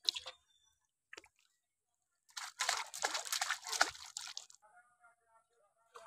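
A freshly caught fish flapping in a steel bowl of shallow water: a dense run of quick wet slaps and splashes lasting about two seconds in the middle, after a few brief knocks at the start.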